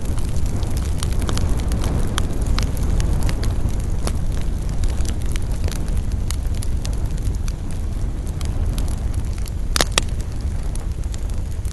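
Campfire burning with frequent sharp crackles and pops over a steady low rumble, one louder pop about ten seconds in.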